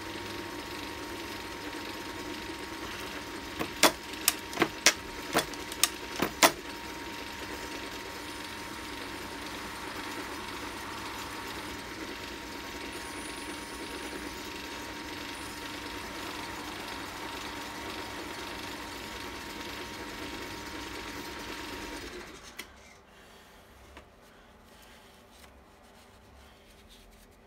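World War I capstan lathe running steadily with a held hum, turning stainless steel bar. A quick run of about seven sharp clicks comes a few seconds in, and the machine shuts off about 22 seconds in.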